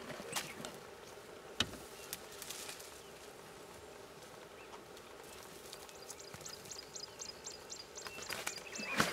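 Faint bush ambience with a steady low hum and a few sharp clicks. About six seconds in comes a rapid, even run of high chirps lasting two to three seconds.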